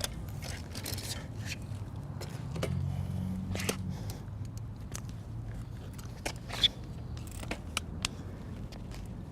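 Folding bicycle being folded or unfolded by hand: scattered clicks and scrapes of its hinges and latches, with one sharp click about six and a half seconds in.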